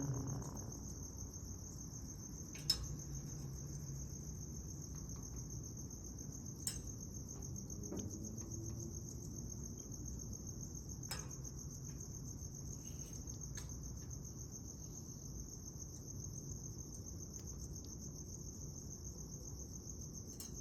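Crickets trilling steadily, a high continuous pulsing chirp, over a faint low murmur, with a few sharp clicks.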